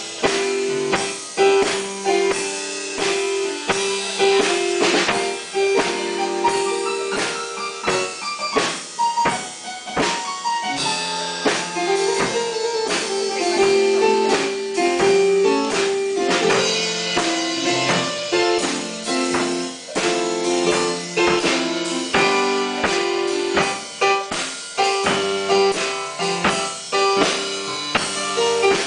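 Electronic keyboard and drum kit playing live music together: sustained keyboard notes over a steady run of drum and cymbal hits.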